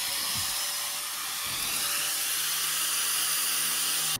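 Electric angle grinder running steadily: a high, even rushing noise with a steady whine, cutting off suddenly near the end.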